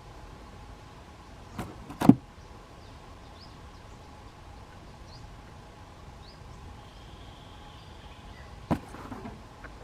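A few sharp knocks: two about one and a half to two seconds in, the second the loudest, and another near the end. Between them runs a faint steady hum, with faint short high chirps.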